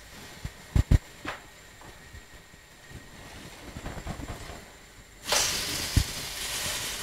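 A slotted spatula clicks a few times against a nonstick frying pan. About five seconds in, hot palm oil breaks into a sudden loud sizzle as a plantain pancake is turned over into it, and the spatula knocks once on the pan.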